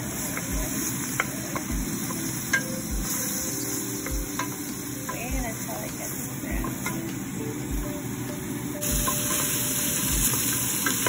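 Diced onion, garlic and ginger sautéing in oil in a stainless steel pot, a steady sizzle, with a wooden spoon stirring and now and then clicking against the pot. About nine seconds in the sizzle turns brighter and hissier.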